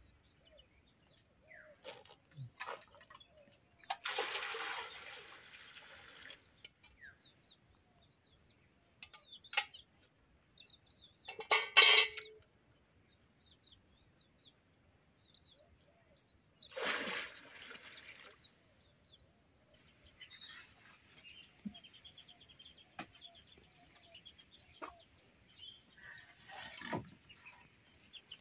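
Small birds chirping on and off, with four short bursts of noise, the loudest about twelve seconds in.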